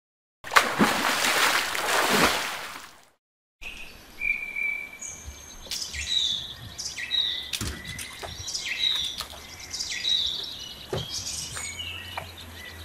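A rushing splash sound effect for about two and a half seconds, fading out. After a short silence, outdoor birdsong of repeated short whistled chirps and rising and falling notes, with a few sharp clicks.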